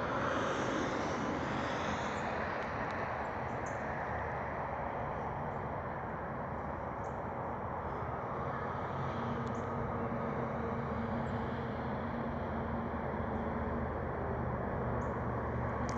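Steady city-street traffic and engine hum, low and even, with a faint steady tone in the middle for several seconds.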